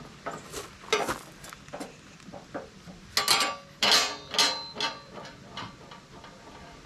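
Steel parts being handled against a steel I-beam: a few light metal taps, then a run of loud metal-on-metal clanks about halfway through, each ringing briefly.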